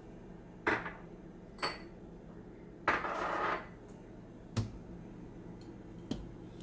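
Kitchen handling sounds: a few separate clinks and knocks of dishes and bottles, with a short rush of noise about three seconds in, as sauce ingredients are added.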